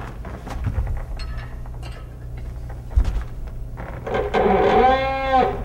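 PowerDrive pneumatic resistance machine being pulled against a push-pull dynamometer during calibration at 60 PSI: small handling clicks and a thump about three seconds in, then a drawn-out pitched squeak lasting about a second and a half as the arm is pulled.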